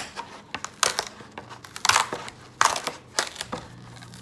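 Foam (styrofoam) takeout clamshell being pulled apart, its lid twisted off at the hinge. The foam gives a series of sharp crunches and creaks, about seven over a few seconds.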